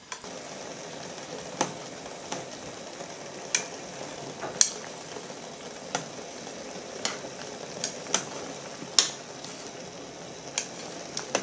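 Hotpot broth simmering: a steady bubbling hiss with about a dozen sharp pops and ticks at irregular intervals.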